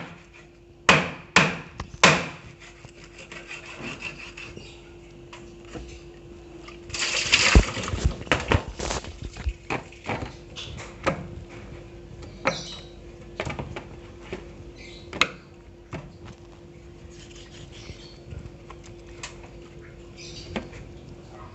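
Marlin fin in a plastic bag handled on a cutting board: a few sharp knocks in the first couple of seconds, a loud burst of plastic crinkling about seven seconds in, then scattered lighter knocks and scrapes as a knife is set to the fin near the end. A faint steady hum runs underneath.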